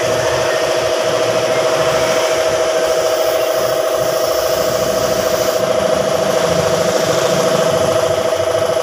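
Gravity-feed paint spray gun hissing as it sprays paint, stopping about two-thirds of the way in, over a loud steady machine hum.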